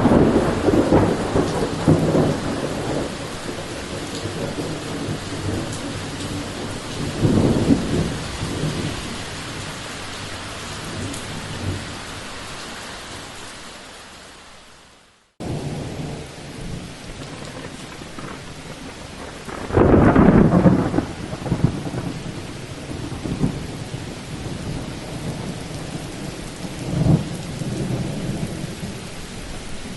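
Thunderstorm with steady rain and repeated rolls of thunder. The first recording fades out about halfway and a second starts with rain, then a loud thunder roll about two-thirds of the way through and a smaller one near the end.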